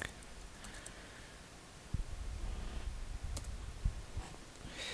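Scattered soft clicks and light desk knocks from study materials being handled, with a sharper click a little past three seconds in and low thumps about two and four seconds in.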